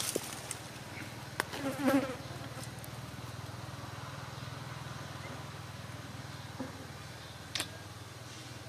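A flying insect buzzing, a steady low drone that holds for several seconds and fades out near the end. A few soft clicks and a brief louder sound come about two seconds in, and one click comes near the end.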